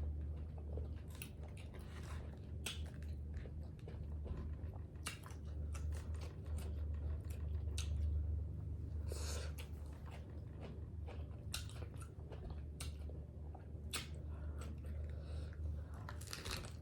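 A person chewing and biting into tacos close to the microphone, with irregular crunches throughout. A steady low hum runs underneath.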